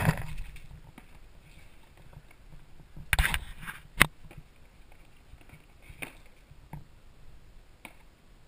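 Packaging being handled: plastic bubble wrap rustling at the start and again in a short crinkly burst about three seconds in, then a single sharp knock about four seconds in, with a few light taps later.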